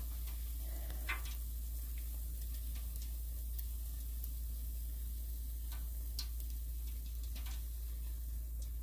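Donut sizzling in hot oil in an electric deep fryer: a steady crackling hiss over a steady low hum, with a few faint clicks.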